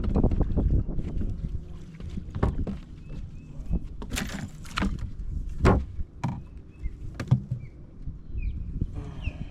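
Knocks and rattles against a small fishing boat, with a short splash-like rush partway through, as a small bass is reeled in and landed. A bird chirps a few times near the end.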